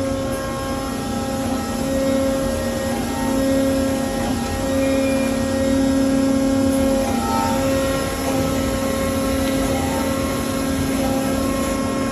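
Flow Mach 2 waterjet cutting machine running: a loud, steady machine drone with a low hum and higher tones that drop in and out every second or two.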